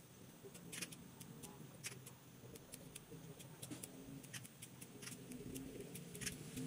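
Hand pruning shears snipping shrub twigs: sharp, faint clicks, about three or four a second, unevenly spaced.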